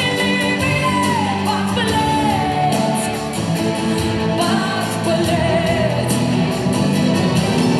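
Pop song with a singer's voice gliding in pitch over a steady drum beat.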